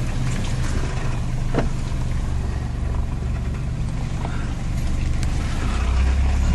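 Off-road vehicle's engine running at low revs with a steady low drone and a few sharp knocks and rattles, getting louder near the end.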